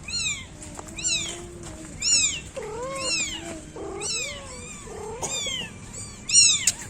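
Newborn kittens mewing: short, high-pitched cries repeated about once a second, with some lower, longer calls underneath.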